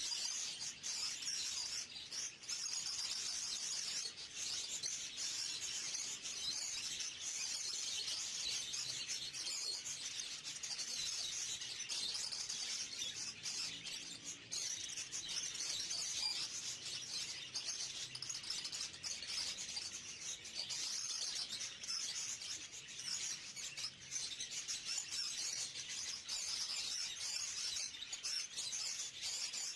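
A flock of budgerigars chattering nonstop, many high chirps and twitters overlapping into one dense, steady chorus.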